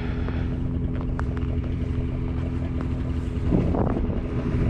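Two-stroke snowmobile engine idling steadily, with a brief louder patch about three and a half seconds in.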